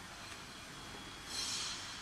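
Hands fitting the high-pressure hose to the outlet at the base of an electric pressure washer: a brief plastic scraping rustle about one and a half seconds in, over a steady faint hiss.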